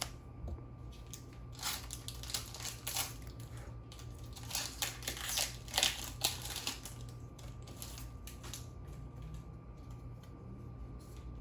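Foil booster pack wrapper being handled and opened, crinkling in irregular bursts over several seconds.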